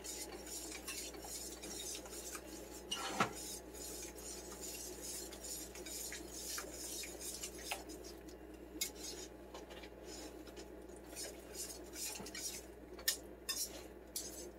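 Flat wire whisk stirring a thick cheese sauce in a stainless steel pan: steady scraping with light metal clinks against the pan and a sharper knock about three seconds in. The cheese is being stirred in constantly as it melts so it does not separate.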